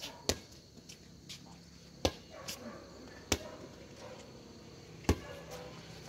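Air volleyball being struck by hands in a rally: a string of sharp, irregular slaps about one to two seconds apart, four loud ones among fainter ones.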